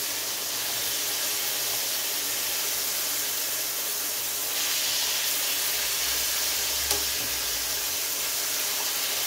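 Thin-cut chicken breast sizzling in olive oil in a hot skillet as the pieces are turned. The steady hiss grows louder about halfway through, with one short click a couple of seconds later.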